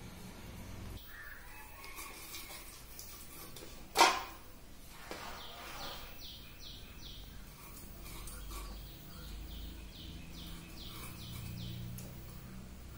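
A bird calling in quick runs of short falling chirps through the second half, over a low background hum. About four seconds in comes a single sharp knock, the loudest sound.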